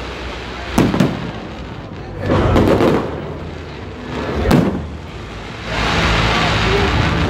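Aerial fireworks bursting overhead: sharp booms about a second in and again at about four and a half seconds, with a longer crackling burst between them, then a continuous rush of crackle from about six seconds in.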